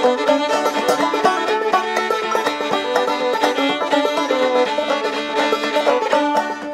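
Instrumental break of a bluegrass-style background song, with banjo picking and fiddle.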